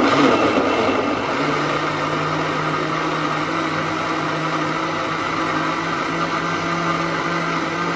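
Countertop blender switched on and running steadily, chopping cantaloupe chunks in liquid into a smoothie. It starts suddenly and is loudest in the first second while the chunks break up, then settles into an even motor hum.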